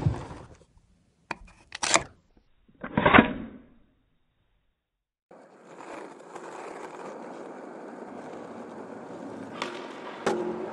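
A skateboard on a concrete skate bowl: a few sharp knocks and scrapes over the first four seconds, the loudest about three seconds in. After a second of silence, a steady low hiss with a faint hum takes over.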